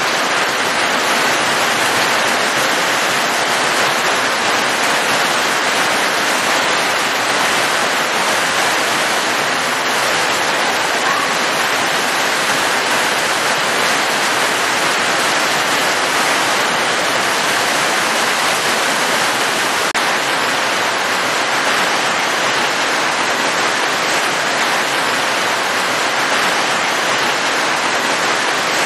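Heavy rain pouring down in a steady, even hiss with no breaks or single drops standing out.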